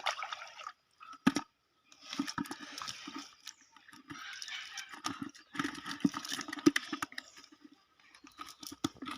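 Pond water splashing in irregular bursts, broken by short pauses, with a few sharp knocks among them.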